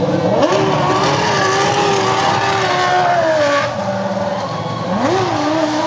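Formula One car's engine revved in blips: the pitch shoots up just after the start and is held at mid revs for about three seconds, sags back to a lower idle, then jumps up again about five seconds in.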